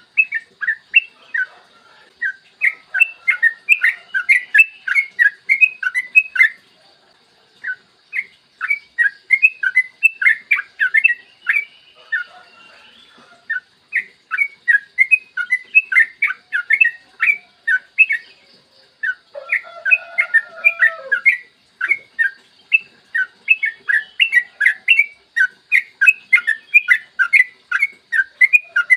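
Yellow-vented bulbul (trucukan) singing long, rapid phrases of short bubbly notes. The phrases break off briefly about 7 and 13 seconds in, and a lower call overlaps about 20 seconds in.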